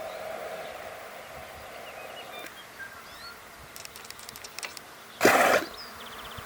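Southern elephant seal snoring: a buzzing drone that stops about two and a half seconds in. Near the end comes a single short, loud burst of noise.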